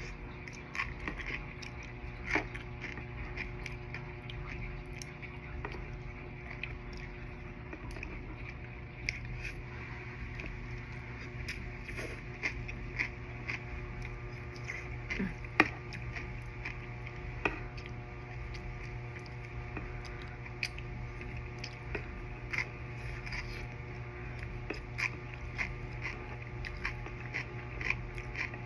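Close-miked eating: chewing with many small wet clicks and taps, over a steady low hum.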